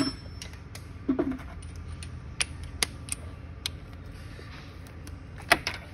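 Scattered metallic clicks and clinks of a Torx bit, socket extension and ratchet being handled and fitted onto a bolt, with a dull knock just after a second in and the sharpest clack about five and a half seconds in.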